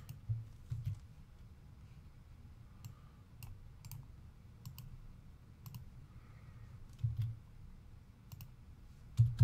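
Irregular clicking of a computer mouse and keyboard, a click every half second or so, with a few dull thumps on the desk, the loudest near the end.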